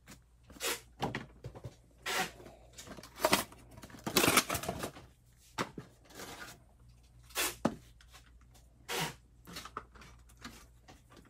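Cardboard booster box and plastic packaging being handled and pulled open: a series of short rustles, scrapes and tears, the longest about four seconds in.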